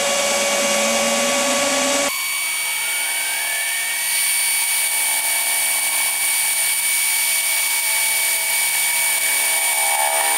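Milwaukee cordless drill in low speed boring a 13 mm twist bit into a steel square tube, running steadily under load. About two seconds in the recording is fast-forwarded, so the drill sound turns higher and thinner, with no low end.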